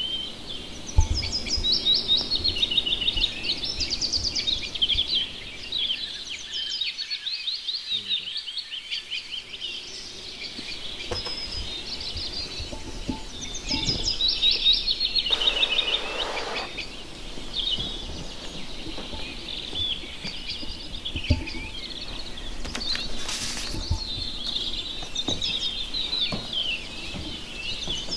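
Several small songbirds chirping and twittering continuously in quick repeated trills, with a short hiss about halfway through.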